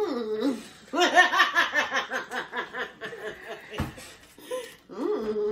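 A woman laughing hard in a quick run of ha-ha pulses, with a single sharp thump a little before four seconds in.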